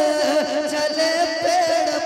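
A man singing a naat, Urdu devotional verse in praise of the Prophet, holding one long wavering note that drifts slowly in pitch.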